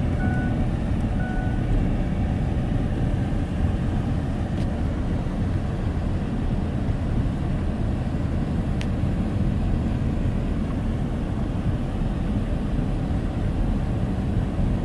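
Steady low rumble of tyres and engine from inside a moving car on the road.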